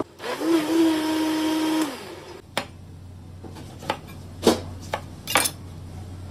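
Countertop blender motor spinning up and running steadily for about two seconds, then stopping. After it, a knife cutting a lemon on a cutting board gives several sharp knocks.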